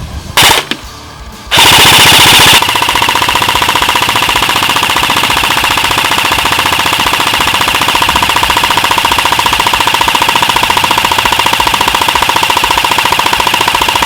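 Echo 1 Red Star airsoft electric light machine gun (AEG) firing full-auto: a short burst, then one long unbroken burst, its gearbox cycling rapidly with a steady motor whine under the clatter.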